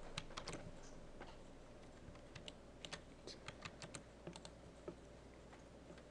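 Faint, irregular clicking of computer keys, a few taps at a time.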